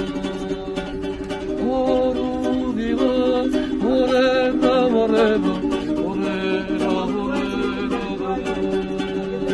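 A small plucked string instrument strummed steadily, its low notes held under the strums, with a man singing a wavering melody over it through the middle.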